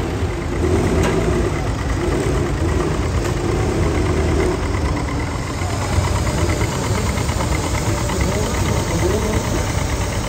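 Diesel engines of vintage tractors running steadily as the tractors drive slowly past, a red Massey Ferguson's engine nearest.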